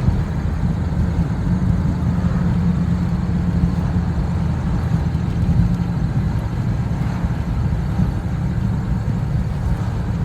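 Chevrolet S10 Blazer being driven, its engine and road noise heard as a steady low rumble from inside the cabin.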